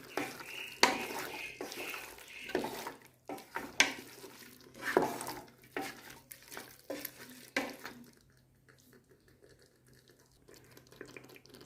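A spoon stirring chicken masala in a pressure cooker pot, scraping and knocking against the metal sides in irregular strokes. The stirring falls away to a faint background about eight seconds in.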